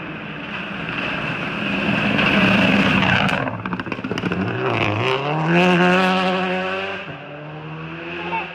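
Rally car engine running hard, with a rough, noisy stretch about halfway, then the revs climbing steadily as it accelerates before the sound falls away near the end.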